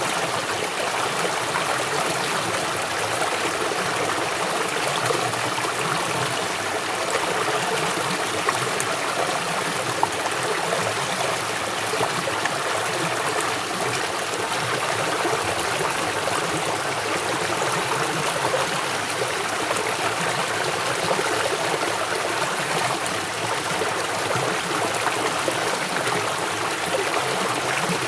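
River water flowing swiftly over rocks, a steady rushing with small splashes and gurgles.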